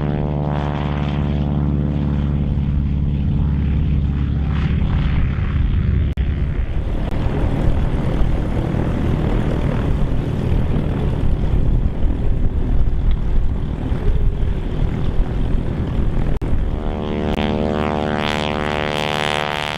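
Radial engines of North American T-6 Texan trainers running at high power on the takeoff roll, a loud steady drone with a buzzy pitched tone. About six seconds in it changes abruptly to a rougher, unsteady engine sound from small propeller planes taxiing, and about sixteen seconds in the steady T-6 drone returns.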